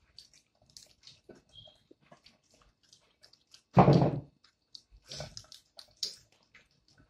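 Soft wet clicks and crackles of boiled peanut shells being pulled apart by hand and the juicy nuts sucked out, with one brief louder noise about four seconds in.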